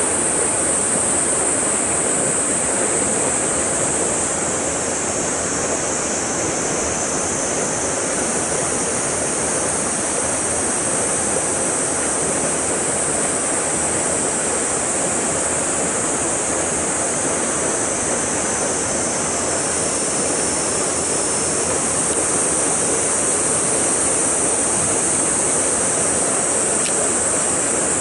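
Steady rush of stream water flowing through a narrow rock channel, with an even high hiss over it.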